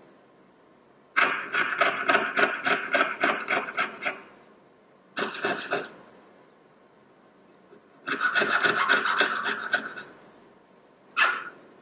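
Jeweller's piercing saw cutting the outline of a small silver sheet flower on a wooden bench pin. It comes in four bursts of quick strokes, about four a second, with short pauses between.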